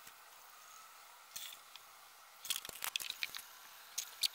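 Faint scattered clicks and light taps of small handling noises, a cluster of them in the middle and two sharper ones near the end, over a quiet hiss.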